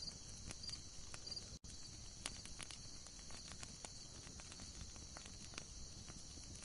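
Wood fire crackling: irregular sharp pops and snaps over a low rumble and a steady high hiss. The sound cuts out for an instant about a second and a half in.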